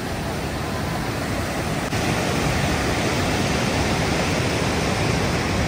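Rushing mountain stream tumbling over rocks in white water: a steady roar of water, a little louder from about two seconds in.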